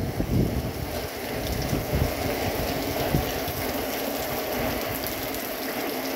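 Steady rain falling in a hurricane, a continuous patter, with gusts of wind buffeting the microphone as a low rumble that is strongest about the first half second.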